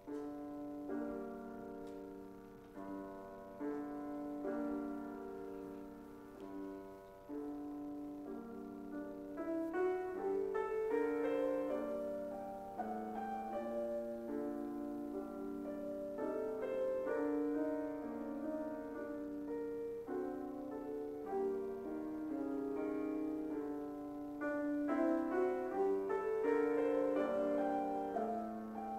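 Solo piano playing a slow, chordal prelude that opens a worship service.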